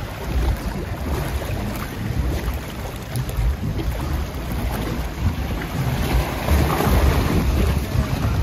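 Water rushing and churning along a log flume trough around the moving boat, with wind buffeting the microphone. It grows a little louder about six seconds in.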